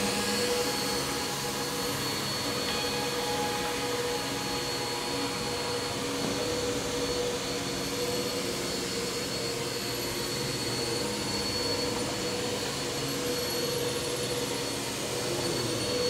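Bagless upright vacuum cleaner running on carpet: a steady motor noise with a constant high whine.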